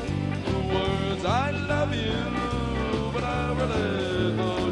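Country rock band music between sung lines: a steady bass and drum beat under held instrument notes, with a lead line sliding up in pitch about a second in.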